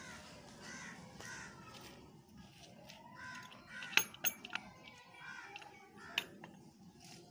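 Small wooden hatch door of a mud-brick rabbit hutch being unlatched and pulled open: three sharp clicks in quick succession about four seconds in and another about six seconds in, over repeated short calls in the background.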